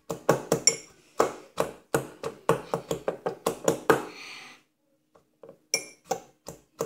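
Metal fork mashing apples in a ceramic mug, clinking sharply against the sides about four times a second, with a short pause about two thirds of the way through.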